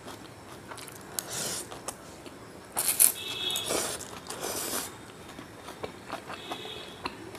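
Stir-fried chow mein noodles being slurped and chewed close to the microphone, with a metal fork clinking and scraping on a ceramic plate. The loudest slurps come in a few hissy pulls about three to five seconds in, with scattered light clicks of the fork throughout.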